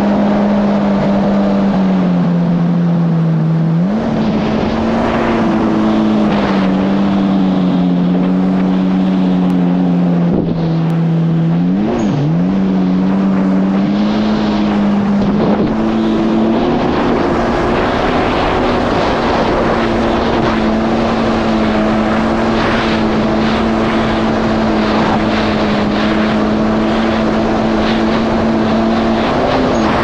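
Yamaha GP1800R SVHO personal watercraft's supercharged four-cylinder engine running hard under load, over a rush of wind and water. Its pitch sags about two seconds in and jumps back up, drifts down, dips and recovers sharply near the middle, then climbs and holds a steady higher note for the second half.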